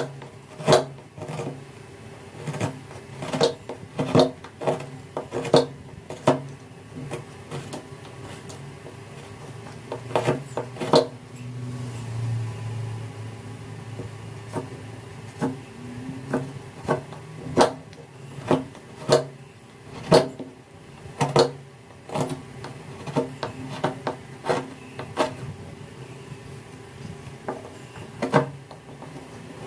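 Wood being hand-carved: irregular sharp taps and knocks, about one or two a second, with a faint steady hum underneath.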